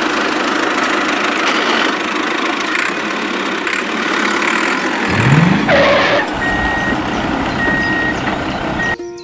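Tractor engine running steadily, with a brief rising rev about five seconds in. From about six seconds in, three short, high, evenly pitched beeps like a reversing alarm sound over it.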